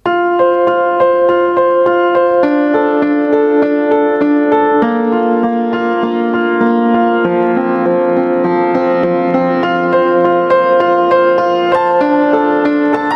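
Background music: gentle piano-like keyboard playing sustained chords that change every couple of seconds.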